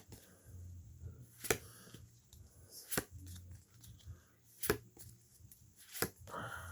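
Pokémon trading cards being flipped through one at a time by hand, each card giving a sharp snap every second or so, about five in all.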